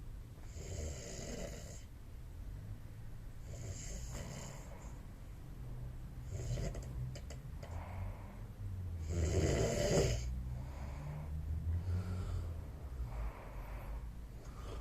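A man snoring in slow, repeated breaths a few seconds apart, the loudest about two thirds of the way through.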